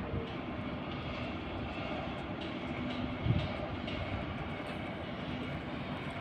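Steady outdoor rumble and hiss with a faint machine hum that comes and goes, and a dull thump about three seconds in.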